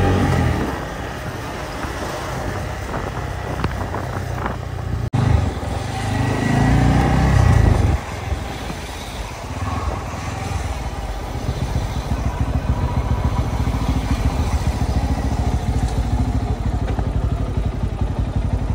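Motorcycle engine running at low speed in slow, stop-and-go traffic, with wind and road noise. After a break about five seconds in, a louder low rumble lasts for a couple of seconds; then the engine settles into even, rapid firing beats.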